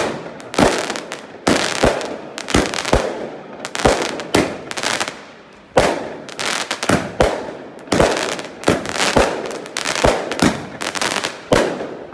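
Firework cake firing a rapid barrage of shots, about two to three sharp reports a second, with crackling bursts overhead.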